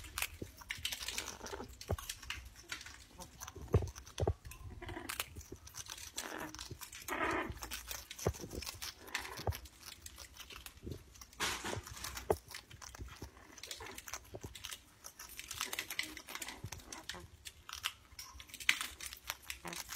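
Yellow-headed Amazon parrot biting and crunching a María biscuit held in its foot: irregular crisp cracks and crumbles from its beak. A few short soft sounds from the bird come in between the bites.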